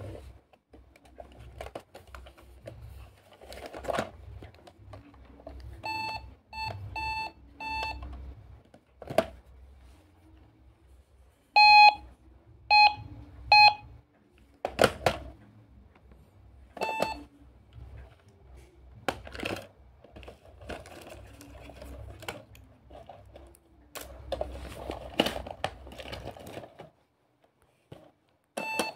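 Pink toy electronic cash register beeping as its buttons are pressed: short beeps in runs of three or four and a few single ones. Plastic clicks and knocks from handling the toy come between them.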